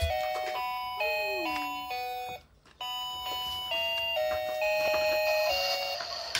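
A simple electronic melody of short, steady chime-like notes stepping up and down, with a brief break about two and a half seconds in.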